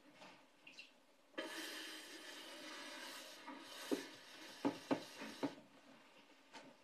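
Kitchen handling sounds: a rasping, rubbing noise starts suddenly and fades over about two seconds, followed by several light knocks.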